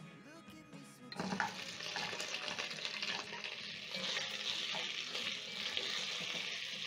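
Pieces of boiled beef hitting hot oil with fried onions, garlic and ginger in a cooking pot: a steady sizzle starts suddenly about a second in, while a wooden spatula stirs the meat.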